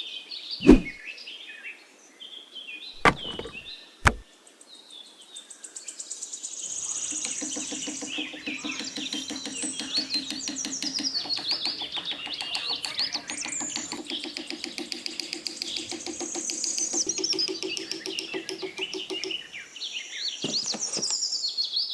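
Birds chirping and twittering, many short high calls at once, over a low steady buzz. A few sharp clicks or knocks come in the first four seconds.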